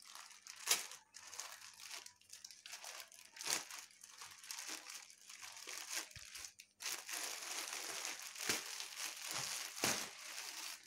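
Plastic courier mailer and wrapping crinkling and tearing as the parcel is ripped open and the backpack is pulled out. Sharp rips about a second in and again at three and a half seconds, then denser, continuous crinkling of the plastic from about seven seconds on.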